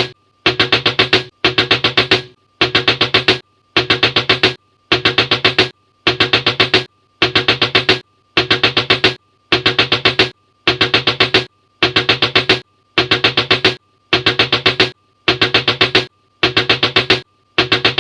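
Rapid door knocking, a burst of about five quick knocks repeated about once a second in an identical loop, some sixteen times over.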